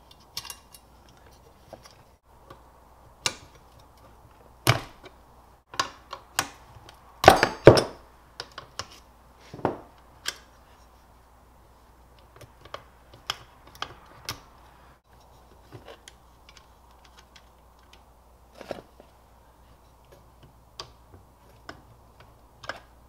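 Irregular metallic clicks and knocks of nuts, bolts, washers and cable lugs being handled while a winch solenoid box is unbolted by hand, with the loudest cluster of knocks about seven seconds in.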